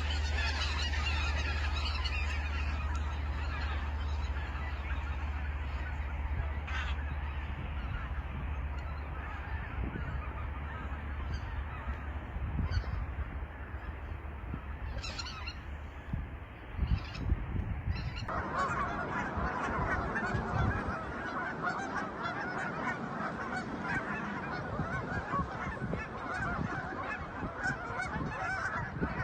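A flock of wild geese honking continuously, many calls overlapping, with a low rumble under the first several seconds. About two-thirds of the way through it cuts abruptly to a denser, brighter chorus of honking.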